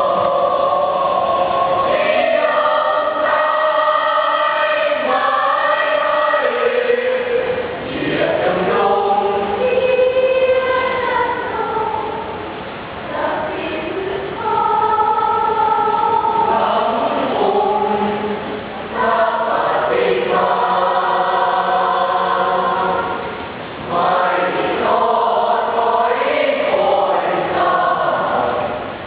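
School choir of students singing in harmony: several voice parts holding chords that shift in pitch, in phrases with short breaths between them.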